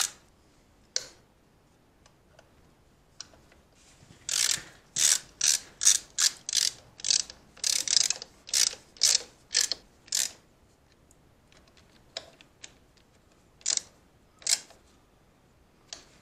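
Hand socket ratchet clicking in short strokes as the sprocket cover bolts are snugged down by hand, not torqued. A run of quick strokes about two a second from roughly four to ten seconds in, then a few single strokes.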